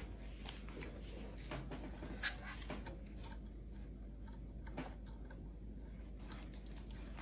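Scattered light clicks and taps as a capuchin monkey's hands handle a sewing machine's housing and fittings around the needle. The sharpest click comes a little past two seconds in.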